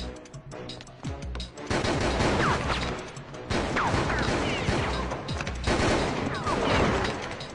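Rapid gunfire from a film soundtrack, coming in several long bursts after a quieter first second or so, with music underneath.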